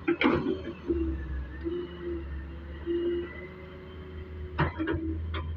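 Doosan Solar 130W wheeled excavator's diesel engine running steadily, with a tone that comes and goes over the low hum. There is a sharp knock just after the start and a cluster of knocks near the end.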